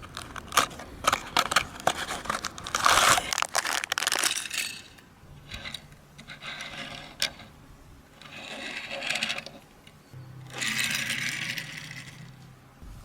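Handling noises from unboxing small toy cars: sharp clicks and taps, then several bursts of crinkling, rustling packaging. A faint low hum runs under the second half.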